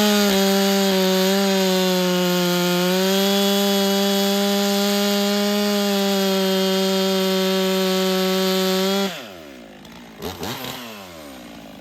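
Stihl MS 400 two-stroke chainsaw running at a steady high pitch at full throttle, cutting through a log. About nine seconds in the throttle is released and the engine winds down to idle, with two brief revs after.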